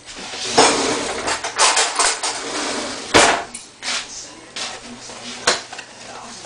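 Kitchen handling noise: a couple of seconds of rough rustling and scraping, then two sharp knocks a little over two seconds apart.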